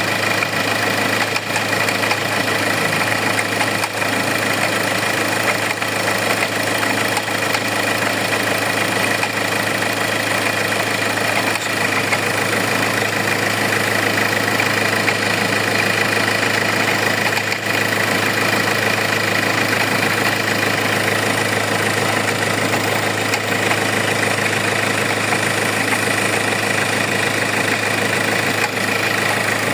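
Hyundai car engine idling steadily, with a steady high-pitched whine over the running. The owner puts the noise down to a faulty alternator pulley.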